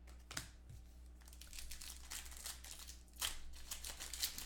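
Trading card pack wrappers crinkling and tearing in the hands as packs are opened. Scattered crackles thicken into a denser rustle, loudest about three seconds in.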